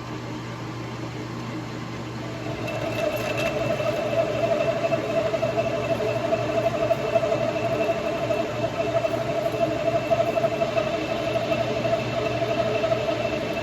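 LeBlanc metal lathe running, with a steady hum. About two and a half seconds in, a carbide insert starts turning down a stainless steel shaft, and the cut adds a steady tone that holds.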